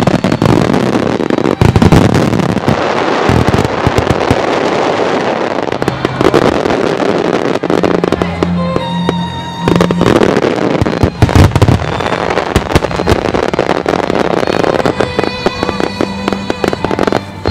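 A large fireworks display going off continuously: many shells bursting in quick succession with crackling. Sustained musical tones run underneath.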